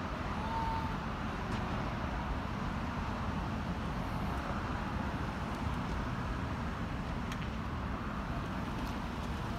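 Steady outdoor rumble of road traffic, an even wash of noise heaviest at the low end, with a short high tone about half a second in.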